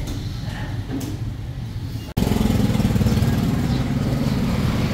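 Steady low mechanical hum, like a motor running, cutting out for an instant about two seconds in and coming back louder.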